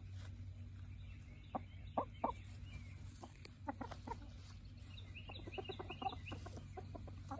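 Backyard hens clucking in short, scattered calls, with a quick run of small high chirps about five seconds in. A steady low hum runs underneath.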